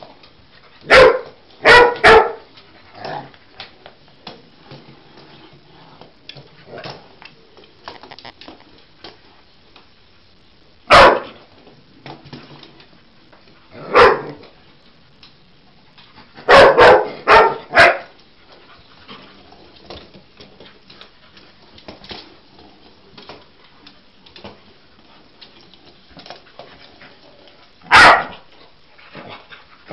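A dog barking in loud, short single barks separated by pauses: three near the start, two lone barks in the middle, a quick run of four a little later, and one more near the end.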